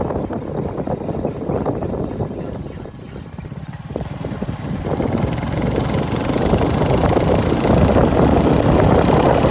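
Wind rushing over the microphone on a moving motorcycle, with the motorcycle's engine running underneath. A steady high whine sounds through the first three seconds or so. About three and a half seconds in, the rush dips briefly, then builds again.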